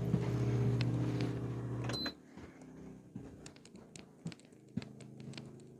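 Genmax GM3200i inverter generator engine running steadily under full load, a steady low hum. The hum cuts off suddenly about two seconds in, leaving only a faint hum and a few light clicks.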